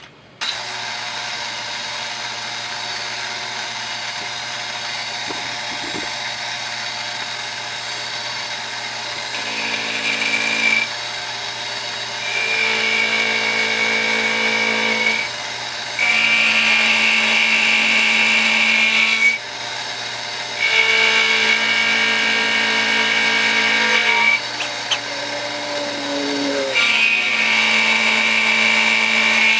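Excello milling machine's spindle starts about half a second in and runs with a steady hum. From about 9 s an end mill cuts into a steel tube in five louder stretches of a few seconds each, each with a high, steady ringing tone.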